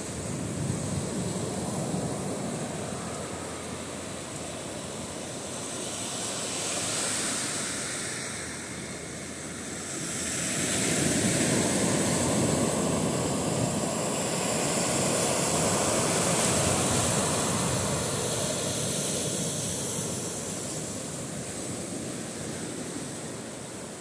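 Surf: small waves breaking and washing up a sandy beach, a steady rush that swells louder about halfway through and eases off near the end.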